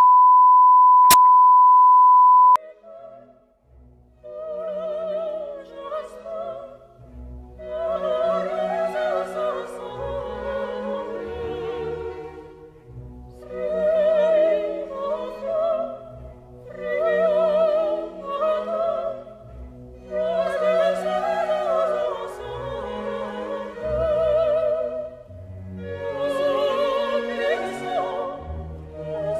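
A steady beep tone for about the first two and a half seconds, then classical music with an operatic voice singing with vibrato in long phrases that swell and fade.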